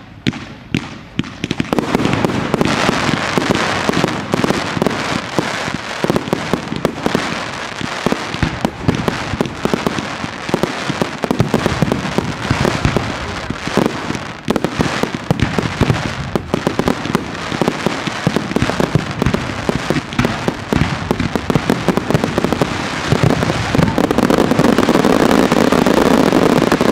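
Fireworks display: a few separate bangs, then from about two seconds in a dense, continuous barrage of shell bursts, bangs and crackling, loudest near the end.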